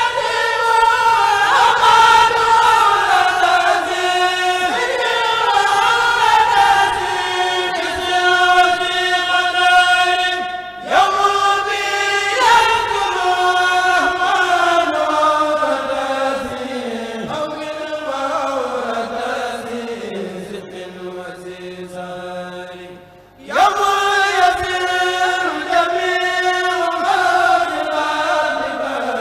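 A kourel, a group of male voices, chanting a Mouride khassida in unison through microphones. The chant moves in long, drawn-out phrases that sink slowly in pitch, with brief breaths about eleven seconds in and again near twenty-three seconds before a new phrase begins. A steady low electrical hum runs under the voices.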